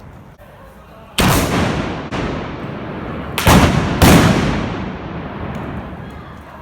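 Trabucs, traditional Catalan blunderbusses loaded with blank black-powder charges, firing four loud shots in two pairs, the second shot weaker. Each shot leaves a long echoing tail.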